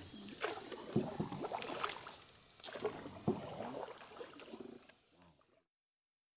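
Water splashing and knocking irregularly around a small boat, over a steady high hiss. It fades out to silence about five and a half seconds in.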